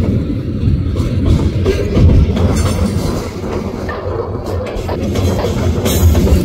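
Freight cars of a bulk train rolling past, a loud steady rumble with wheels clacking over the rail joints.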